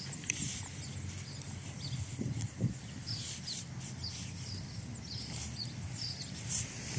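Small birds chirping in the background, many short high chirps, over a low rustling haze, with a couple of soft thumps about two and a half seconds in as a puppy moves about on the grass.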